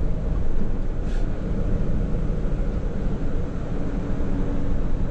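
Heavy tractor-trailer truck cruising on the road, heard inside the cab: a steady diesel engine drone mixed with tyre and road noise.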